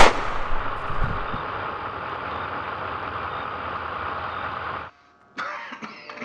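A single gunshot at the very start, then the steady noise of a car engine idling, which cuts off abruptly about five seconds in.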